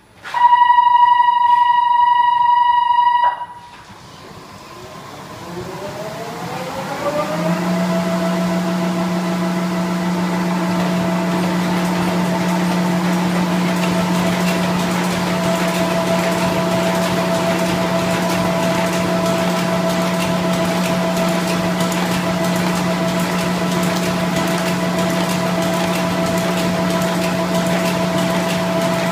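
A box folder-gluer sounds a steady warning beep for about three seconds, then its drive winds up with a rising whine and settles into a steady running hum.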